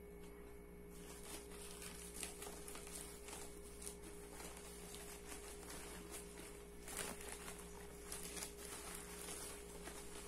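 Plastic mailer bag and bubble-wrap packaging crinkling and rustling in the hands as a book is pulled out, a string of faint irregular crackles. A steady low hum runs underneath.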